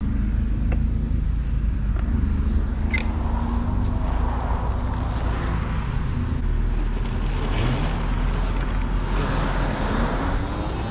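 Riding noise from a small electric vehicle on a dirt road shoulder: a steady low rumble of wind on the microphone and tyres on the dirt, with a few faint clicks early on. Traffic runs slowly alongside, and a rising whine comes in near the end.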